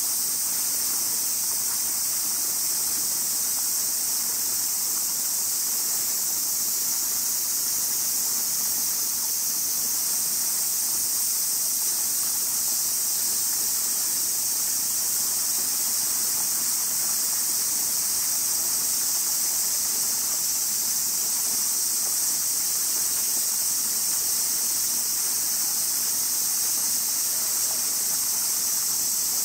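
Cicadas singing in a steady, high-pitched summer chorus that does not let up.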